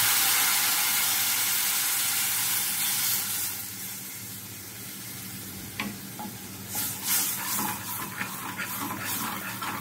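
Tamarind water sizzling in a hot pan of fried ginger, loud at first and dying down after about three and a half seconds. From about six seconds in, a wooden spatula stirs the curry, knocking and scraping against the pan.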